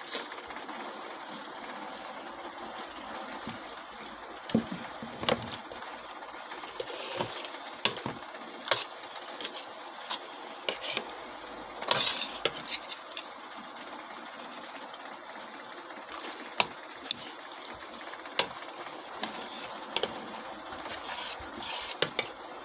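Spoon and fork clinking and scraping against plates of rice while eating: short, irregular light clicks over a steady background hiss.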